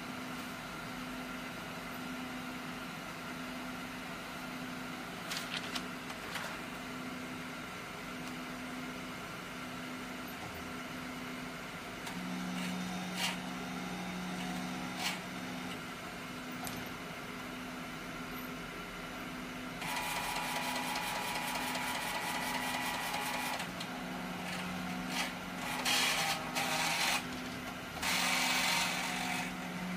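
Large-format inkjet printer's mechanism running: a steady machine hum with a pulsing tone under it and a few sharp clicks. A lower motor whir comes in for a few seconds about 12 s in and again later, and louder rushing noise starts about 20 s in and comes in bursts near the end.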